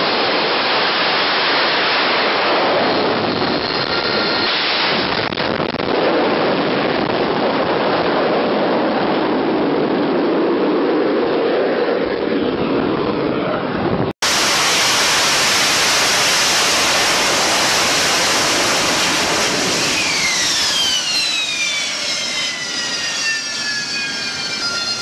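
AV-8B Harrier's Rolls-Royce Pegasus turbofan at full power for a deck takeoff, a loud steady jet roar. After a sudden cut about halfway, another Harrier's engine runs on the deck, its whine falling in pitch and then holding steady near the end.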